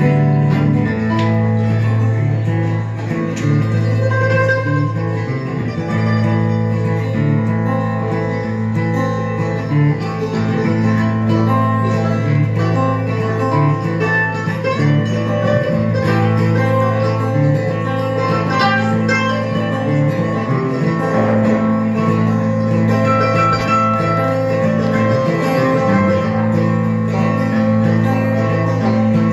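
Live acoustic string band playing a bluegrass-style tune: acoustic guitar, banjo and mandolin strumming and picking together in a steady rhythm.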